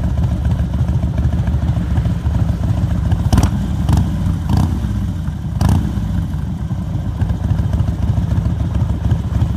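Engine running steadily at idle, with four sharp clacks over a couple of seconds about three seconds in.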